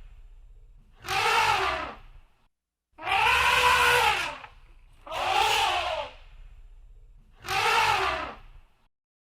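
Elephant trumpeting: four loud blasts, each about a second long, rising and then falling in pitch, with short pauses between them.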